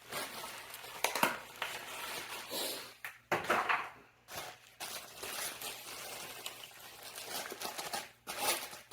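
Rustling and crinkling of plastic and cardboard packaging, with irregular light knocks, as vacuum-cleaner attachments are unpacked from their box.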